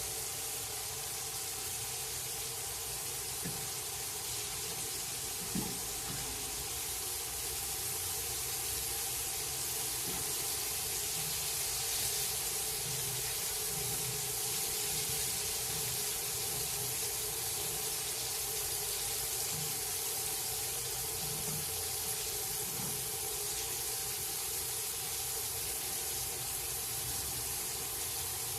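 Small white grunt fillets frying in hot peanut oil in a cast iron pan: a steady sizzle, with a faint steady tone underneath and a single small click about five seconds in.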